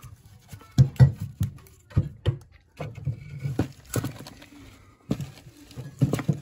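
A split firewood log knocking and scraping as it is worked into a wood burner's firebox over burning cardboard: about ten irregular knocks, loudest about a second in and again near the end, with rustling between.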